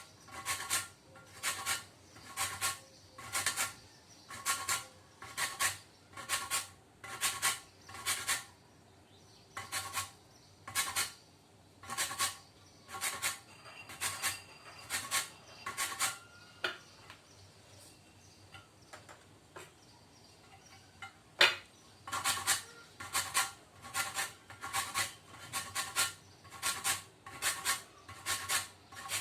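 A lemon being rubbed over a fine metal grater to take off its green zest, in regular rasping strokes about two a second. The strokes fade for a few seconds in the middle, and there is a single sharp knock before they pick up again.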